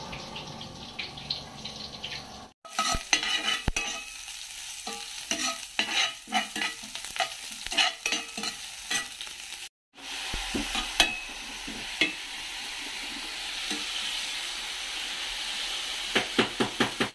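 Sliced onion and garlic sizzling in oil in a frying pan, with a spatula scraping and clicking against the pan as it stirs. After a cut, minced pork frying with a steady sizzle that grows a little louder, and a run of spatula clicks near the end.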